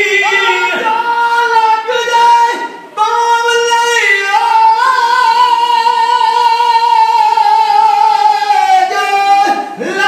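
A high male voice singing unaccompanied kavishri, the Sikh jatha style, with long held notes. The voice breaks off briefly about three seconds in and again near the end.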